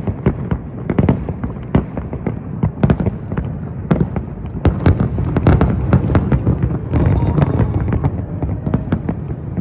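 Aerial fireworks going off in a dense barrage: many sharp bangs and crackles at irregular intervals over a continuous low rumble of overlapping booms.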